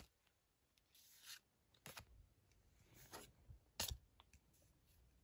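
Pokémon trading cards being flipped through by hand: a handful of faint, brief slides and flicks of card against card, the sharpest a little before the end.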